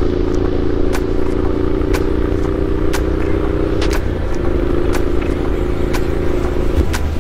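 Triumph Street Scrambler 900's parallel-twin engine with a Zard aftermarket exhaust, running steadily at cruising speed. The engine note dips briefly about four seconds in and again near the end.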